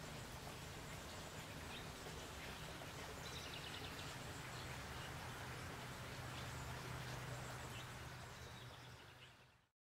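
Outdoor garden ambience: a steady low hum and hiss, with a few brief bird chirps. It fades out near the end.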